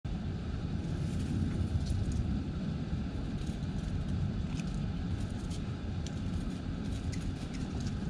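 Steady low outdoor rumble with a few faint, short high ticks scattered through it.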